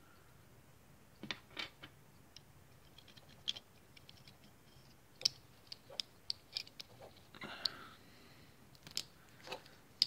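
Faint, irregular small clicks and rubbing of a plastic automotive wiring connector and its orange insert being handled and turned by hand, with a short rustle a little past halfway.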